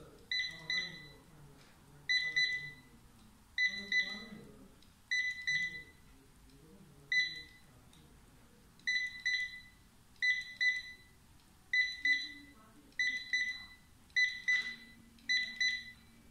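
SUNLUX XL 9309 wireless handheld barcode scanner giving its good-read beep over and over as it decodes difficult barcodes one after another: about eleven short, high double beeps, one every second or so, each one a successful read.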